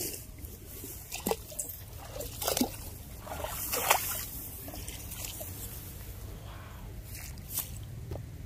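Shallow rice-paddy water sloshing and splashing in several short bursts, the loudest about four seconds in, over a low steady rumble.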